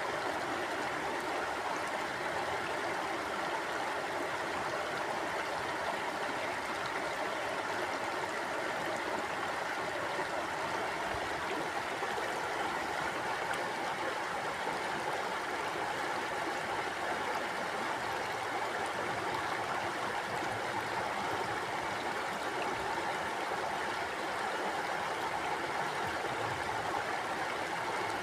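Shallow stream flowing steadily over rocks, a continuous even rush of water with a gentle burble.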